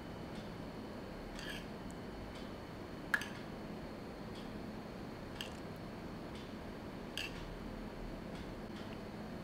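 Light, scattered clinks of a metal spoon against a small steel saucepan and plate as hot tempering liquid is spooned over dhokla. There are about five taps, the one about three seconds in the loudest, over quiet room tone.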